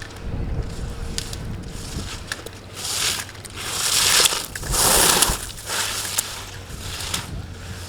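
Ski edges scraping and carving on hard-packed snow as a slalom racer turns past, in a run of swells that are loudest about three to five seconds in, with a few sharp clicks.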